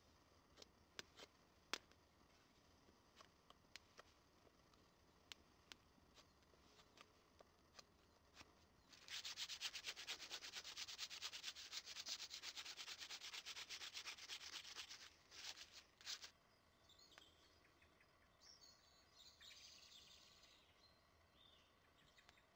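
Sparse crackles from a small wood fire. Then, about nine seconds in, several seconds of fast repeated strokes rubbing down the end of a wooden saw-frame arm by hand. Faint bird chirps follow near the end.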